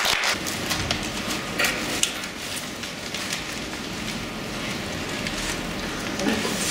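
Crumpled brown-paper puppets rustling as puppeteers hold and move them, with many small crackles.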